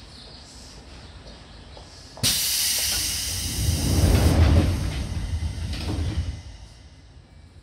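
A sudden loud hiss of compressed air from a Seibu 2000 series electric train starts about two seconds in and fades over a second or so. A low rumble swells beneath it and dies away a little after six seconds.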